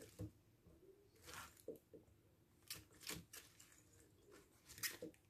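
Faint, scattered rustles and light knocks of cauliflower florets and leaves being handled in an enamel colander.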